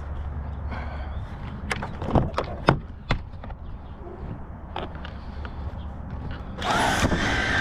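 Car door being handled as he moves to the other side of the car: a few sharp clicks and knocks about two to three seconds in. Near the end a loud, steady whining noise starts abruptly.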